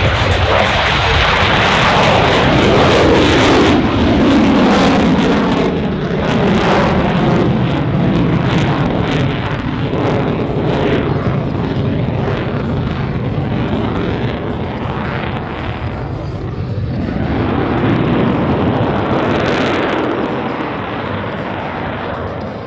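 F-22 Raptor's twin F119 afterburning turbofan engines at full power during a maximum-power takeoff and climb: a loud, continuous jet noise whose pitch falls as the jet passes in the first few seconds, easing and then swelling again near the end.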